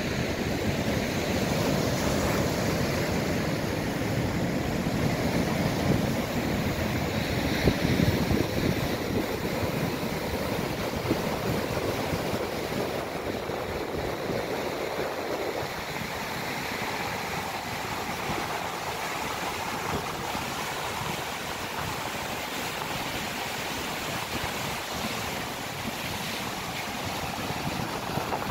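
Heavy surf from a rough, surging sea breaking and washing over the boulders of a rock seawall: a steady roar of water that eases a little about halfway through.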